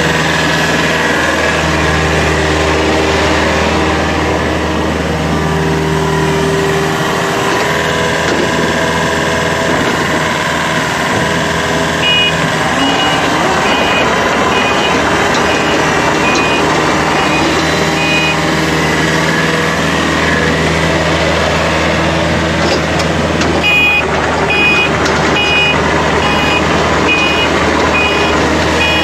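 Komatsu small excavator's engine running steadily, its pitch shifting slightly with load. Its warning alarm beeps in a steady series about halfway through and again near the end.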